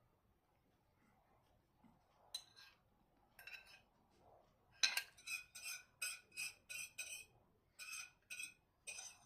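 Metal cutlery clinking and scraping against a plate or bowl while eating, about a dozen short strokes that start a couple of seconds in, come about three a second in the middle and ring briefly at the same pitch each time.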